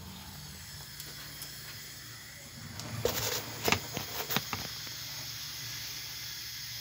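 Phone handling noise: a cluster of sharp clicks and knocks as the phone is set down and propped on the kitchen counter. Under it runs a steady hiss and low hum.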